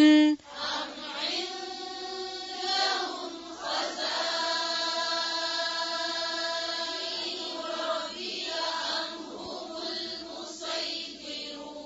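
A group of voices chanting a Quran verse together in unison, in tajweed style. A lead reciter's held final note cuts off just at the start.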